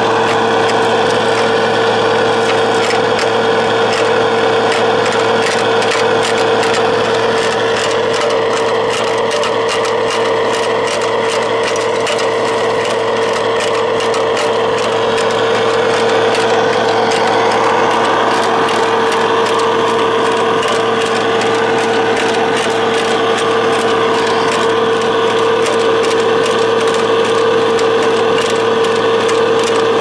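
Radio-controlled construction machine working, its small electric drive giving a steady, unchanging whine over dense clicking and rattling of gears and moving material.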